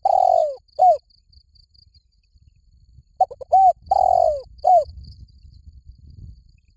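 Spotted dove cooing in two phrases. The first ends just after the start with a long drawn-out coo and a short closing coo. The second, about three seconds in, opens with a few quick stuttering notes, then the long coo and the short closing coo.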